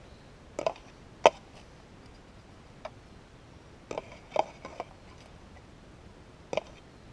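A handful of brief, sharp clicks and knocks, about seven in all and the sharpest a little over a second in, from a digging scoop and handfuls of soil being handled over a metal detector's search coil while a gold target is pinpointed.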